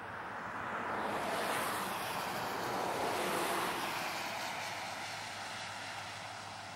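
Thunderstorm wind gust rushing, swelling over the first second and easing off toward the end.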